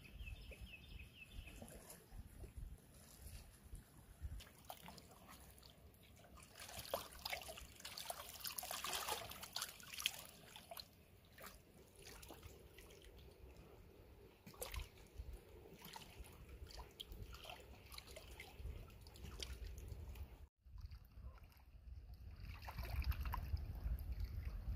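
Stream water trickling, with irregular small splashes.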